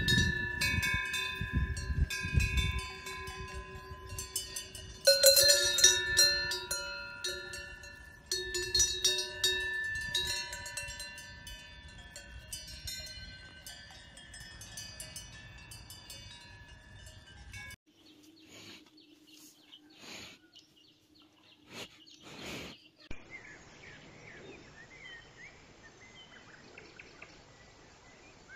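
Several cowbells on grazing cows clanking and ringing, with fresh strikes about five seconds in and again a few seconds later, then dying away; a low wind rumble runs under the first few seconds. After a cut come a few short knocks, then faint bird chirps.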